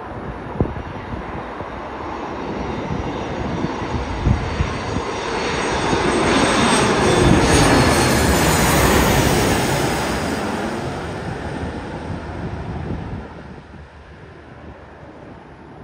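Boeing 737 MAX 8's CFM LEAP-1B turbofans on final approach as the jet passes low overhead. The engine noise swells to a peak about halfway through, its whine dropping in pitch as the aircraft goes by, then fades as it moves away.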